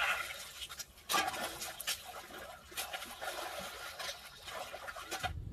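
A hooked fish thrashing at the surface of shallow, muddy pond water on a hand line, in a run of sharp splashes about once a second with water splattering in between. The splashing cuts off suddenly near the end.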